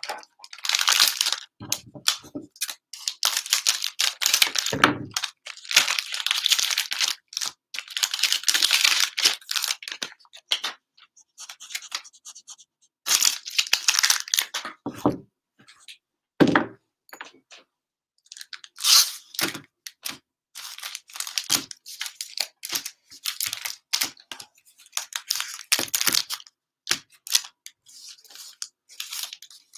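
Foil and cellophane trading-card pack wrappers crinkling in irregular bursts as the packs are handled, separated and stacked, with a few dull thuds as packs are set down.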